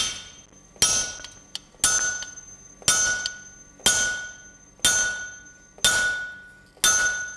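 A sledgehammer striking the head of a handled hot punch driven through a hot steel bar on an anvil. There are eight blows, about one a second, each with a bright metallic ring that fades before the next. The ringing is the anvil, a sign that the punch is nearly through and the slug is touching the anvil.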